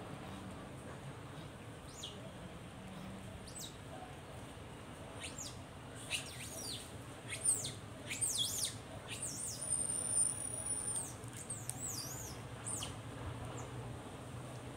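Wild birds calling: a scatter of quick high chirps and downward-sweeping whistles, busiest in the middle, with one longer held whistle about ten seconds in, over a low steady hum.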